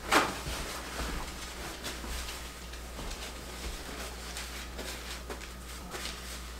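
Kitchen handling noises: a brief loud sound just after the start, then soft rustling and light clicks as a paper towel is pulled and used to wipe hands.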